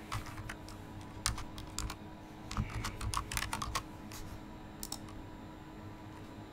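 Typing on a computer keyboard: a run of irregular keystrokes that stops about five seconds in.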